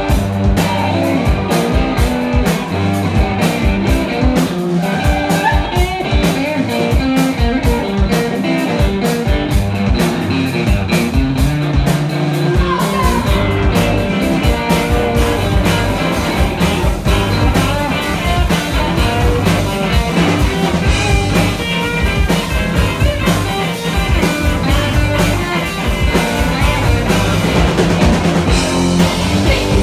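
Rock band playing live and loud: electric guitar and electric bass guitar with drums, an instrumental stretch without singing.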